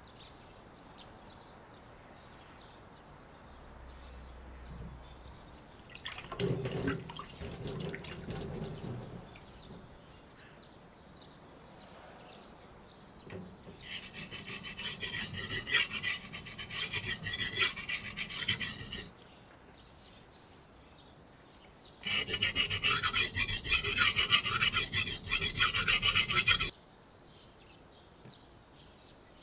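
Damascus kitchen knife blade being ground on a whetstone with rapid back-and-forth strokes: a gritty scraping in two spells of about five seconds each. A shorter, duller rubbing comes a few seconds in.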